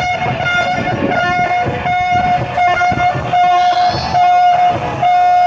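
A horn sounding a string of short blasts at one steady pitch, a signal given at the end of a countdown.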